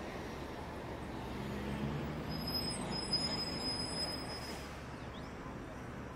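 Faint, steady low rumble of background noise in a large empty hall, with a few soft knocks about two to four seconds in.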